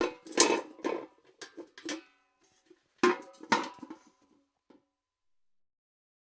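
Steel bucket clanking: a quick cluster of knocks and rattles with a short metallic ring, then a second cluster about three seconds in, dying away before the five-second mark.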